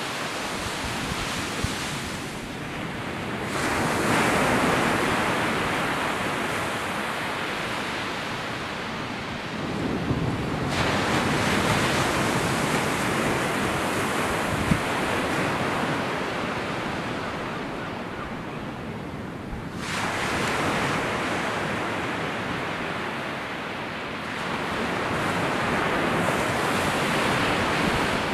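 Sea surf breaking on a sandy beach, a steady wash that swells and eases in long surges every five to ten seconds.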